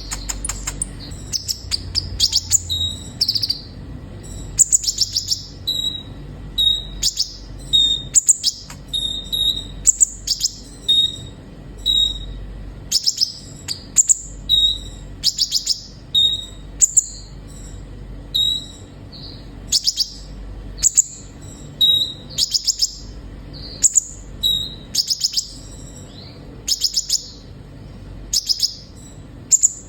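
Sunbird of the kind Indonesian keepers call kolibri ninja, singing on and on: quick high-pitched chirps and twittering phrases, a burst every second or so.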